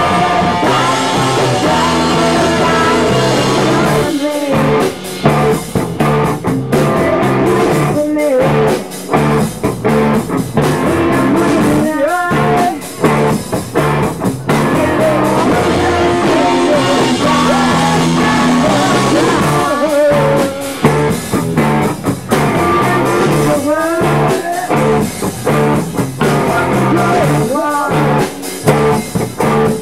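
Live punk rock band playing loudly: electric guitar, electric bass and drum kit with cymbals, with a singer's vocals over them at times.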